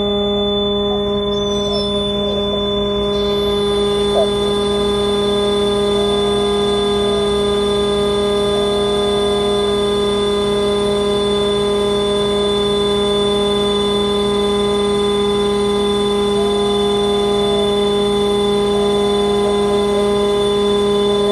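Steady mechanical drone with a high whine from a Magirus aerial ladder fire truck's engine and hydraulic drive as the ladder and rescue cage swing. A few brief, slight wavers in pitch come through.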